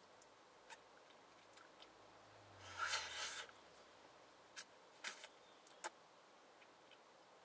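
Small handling sounds during a meal: a brief rustle about three seconds in, with a few sharp clicks before and after it, over quiet room tone.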